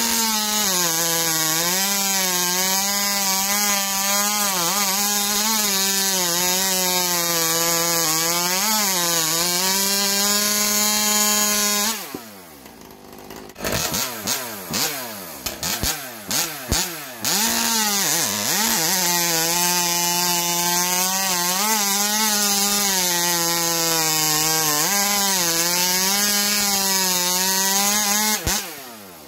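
Stihl MS500i fuel-injected chainsaw with an expansion chamber pipe cutting through a hard log at full throttle, the engine holding a steady high pitch that sags slightly and recovers as the chain bites. About twelve seconds in the sound drops away briefly, then the saw revs back up and cuts again.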